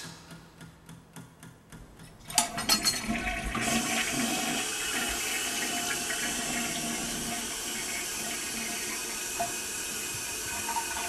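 Toilet flushing: a few faint ticks, then a sudden rush of water about two seconds in that settles into a steady rushing.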